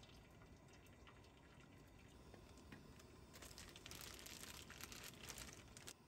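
Hot water poured from a stainless steel kettle onto a drip coffee bag in a metal mug: a faint trickle that grows louder about three seconds in and cuts off suddenly near the end.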